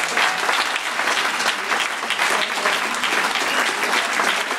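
Opera-house audience applauding steadily in a standing ovation for the cast's curtain call.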